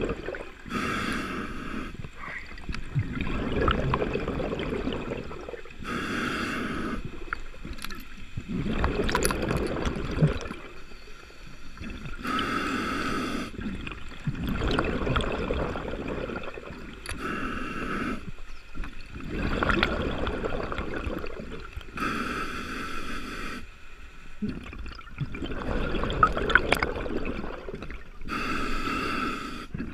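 Scuba diver breathing through a regulator underwater: a hissing inhale of about a second, then a longer burst of exhaled bubbles gurgling, about every five seconds, six breaths in all.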